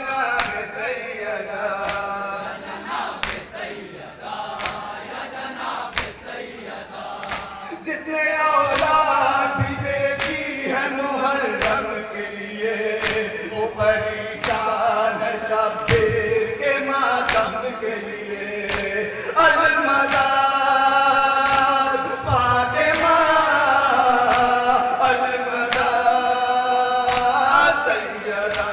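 Male voices chanting a nauha, a Muharram lament, in chorus, the melody rising and falling in long sung phrases. Sharp, regular beats keep time about every three-quarters of a second.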